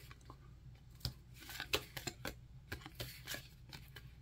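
Baseball cards being flipped through by hand, one card slid off the stack after another: a string of soft, irregular paper snaps and rustles.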